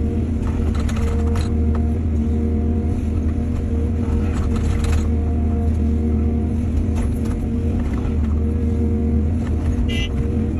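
Heavy earthmoving machinery's diesel engine running steadily at a constant pitch, with a few brief clatters, the loudest about four to five seconds in, and a short high tone near the end.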